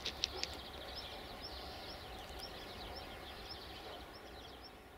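Birds chirping in a dense run of quick, high, short notes over a steady low rumble, with a couple of sharp clicks right at the start; the whole sound fades gradually near the end.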